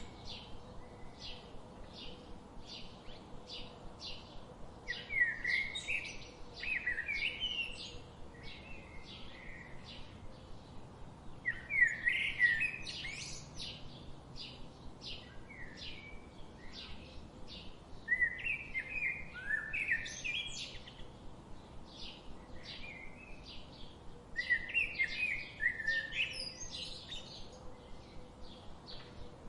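Songbirds chirping: a steady series of short high chirps, about two a second, with a louder warbled song phrase breaking in roughly every six seconds.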